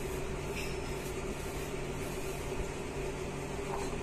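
Steady mechanical hum with one constant mid-pitched tone, with no distinct knocks or clatter.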